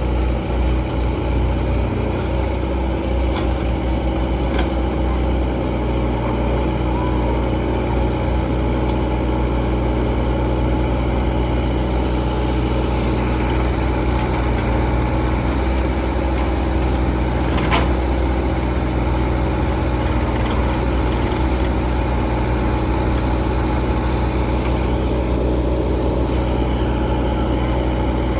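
Diesel engine running steadily at an even, low speed, with a single sharp clank about eighteen seconds in.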